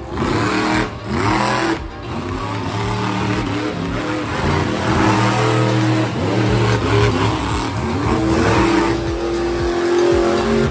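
Monster truck engines revving hard and often, the pitch climbing and dropping again and again, then held high near the end.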